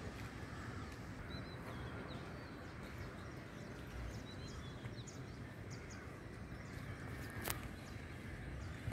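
Outdoor morning ambience: scattered faint bird chirps over a steady low rumble, with one sharp click about seven and a half seconds in.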